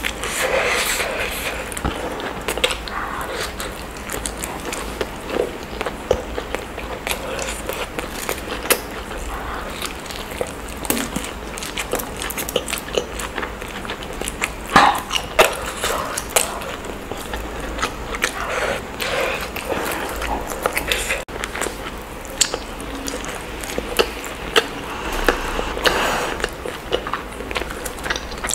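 A person biting and chewing steamed momo dumplings, with many short mouth clicks throughout.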